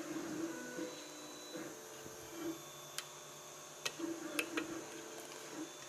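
Faint metallic clicks of a lock pick probing the pins of a Corbin Russwin pin-tumbler lock held under tension, a few scattered ticks in the middle, over a low steady hum.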